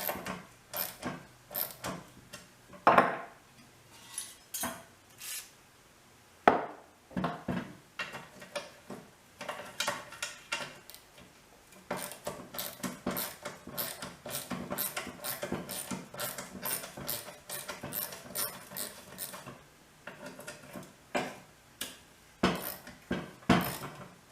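Socket ratchet clicking in runs as self-tapping screws are backed out of an old lawn mower muffler, with sharp metal clinks in between. The clicking turns into a quick, steady run about halfway through.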